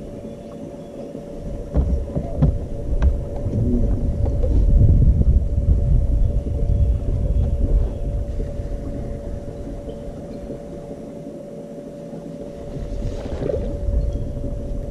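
Small electric motor, most likely a boat's trolling motor, giving a steady high whine, under a low wind rumble on the microphone that swells and fades. A few sharp clicks come about two to three seconds in.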